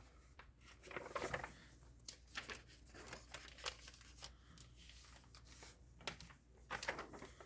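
Faint, intermittent rustling and crinkling of paper magazines being handled and stacked, with a few slightly louder rustles, about a second in and again near the end.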